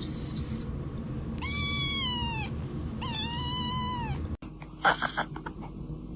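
A cat meowing: two long, drawn-out meows about a second apart, each rising and then falling in pitch. About two-thirds of the way through the sound cuts off, and a few short clicks and brief noises follow.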